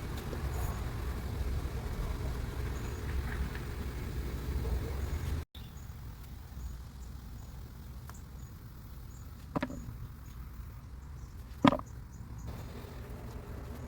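A steady low rumble that cuts off abruptly about five seconds in, followed by a quieter background with two sharp knocks, the second louder.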